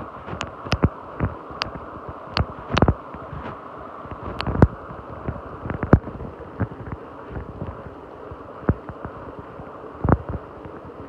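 Shallow stream flowing over a pebble bed, heard from underwater: a steady muffled rush with irregular sharp clicks and knocks, bunched in the first few seconds and a loud one near the end.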